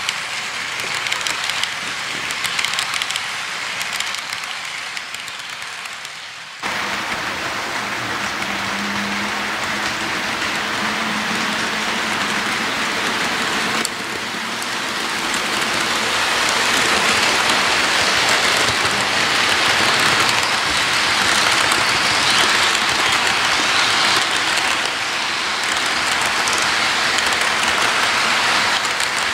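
HO-scale model freight train rolling past close by: a steady rushing clatter of the cars' wheels on the rails. The sound jumps abruptly louder about seven seconds in and shifts again about fourteen seconds in.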